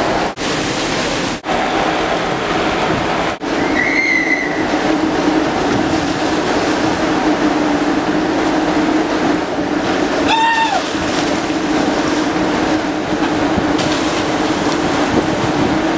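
Steady rush of water running down the waterslide into its splashdown runout, over a low steady hum. Two brief high-pitched sounds stand out, one about four seconds in and one about ten seconds in.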